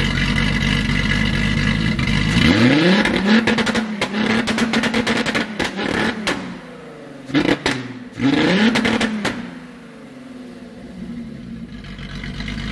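Mid-mounted VW VR6 engine in an Acura Integra idling, then revved up three times through its twin exhaust tips, with sharp pops between the revs before it drops back to idle. The engine is running with a misfire and the EPC light on in limp mode, which the owner thinks is a bad coil pack.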